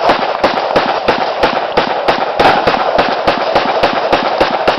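Rapid, continuous gunfire from several guns at once, about four shots a second with no let-up, over a steady background din.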